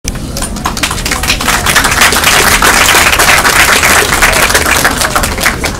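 Audience applauding, swelling and then easing off near the end.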